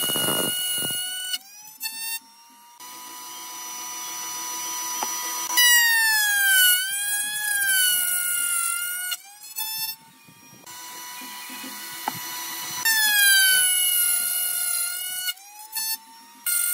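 Table-mounted router running at high speed, cutting slots in a wooden workpiece pushed across a straight bit: a high, steady whine that drops and wavers in pitch during each cut and returns to a flat, level pitch between cuts, with a few short breaks.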